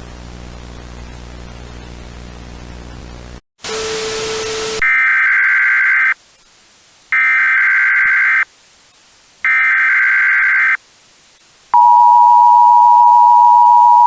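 Steady static with a low hum cuts out, then a short burst of louder static. Next come three screechy Emergency Alert System SAME data header bursts, about a second apart. After them, about twelve seconds in, the steady, loud two-tone EAS attention signal begins.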